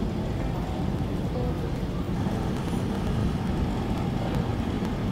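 Steady low rumble of city street noise, with wind on the microphone.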